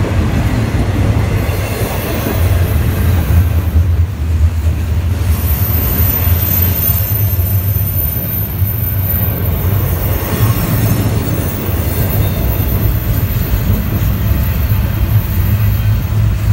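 CN double-stack intermodal freight train rolling past close by: a loud, steady rumble of the container well cars on the rails, with a thin high-pitched whine from about five seconds in.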